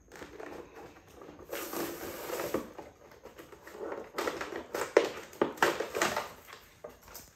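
Clear plastic blister packaging of a toy figure crinkling and crackling as it is pulled open by hand, with a stretch of rustling about two seconds in and a denser run of sharp crackles from about four to six and a half seconds in.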